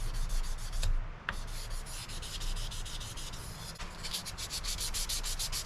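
800-grit sandpaper rubbed by hand along a Damascus steel knife blade in quick back-and-forth strokes, about five a second, with a short break about a second in. This is hand sanding between ferric chloride etches.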